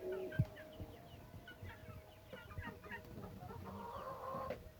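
Young poultry chicks peeping: many short, high chirps overlapping throughout, with one low knock about half a second in and a longer, louder call near the end.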